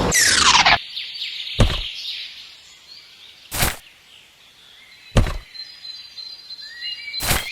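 A quick falling swish, then four separate sharp knocks spaced about one and a half to two seconds apart.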